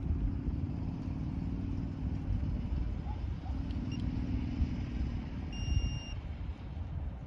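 Wind buffeting the microphone in a steady low rumble, with the faint hum of a car passing twice. A short high electronic beep sounds about three quarters of the way in.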